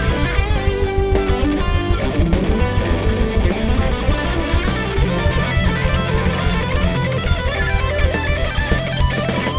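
Guitar-led music with electric guitar and a steady beat, with no singing.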